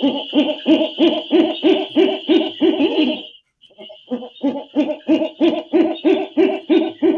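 An owl hooting in two rapid runs of short low hoots, about three a second, with a brief pause between the runs. A steady high tone sounds behind the hoots.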